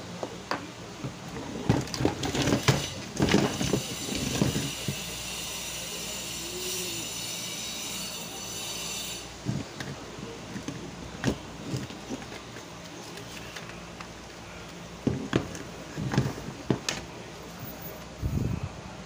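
Knocks, clicks and rattles of a portable FM radio's plastic case and circuit-board chassis being handled and lifted apart on a wooden bench. The handling noises come in clusters, the busiest near the start and again late on. A steady high-pitched sound of several tones runs in the background for several seconds in the middle.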